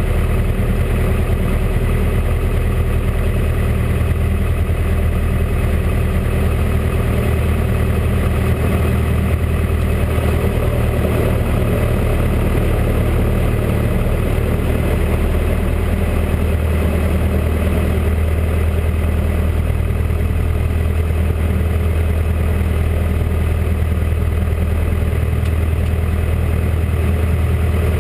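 Single-engine light aircraft's piston engine and propeller running steadily at low power while taxiing, heard from inside the cabin as a loud, even drone.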